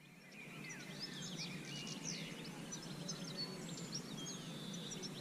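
Many small birds chirping and twittering over a steady low background hum, fading in over the first second.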